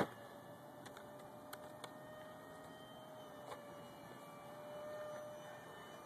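Faint, steady whine of a Redcat F/A-18 radio-controlled model jet flying high overhead, swelling a little about five seconds in, with a few light clicks.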